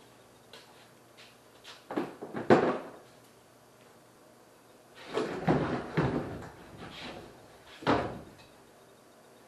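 Bangs and clatter of a large riveted aluminum panel being handled and moved: a couple of bangs about two seconds in, a longer stretch of clattering about halfway, and a sharp knock near the end.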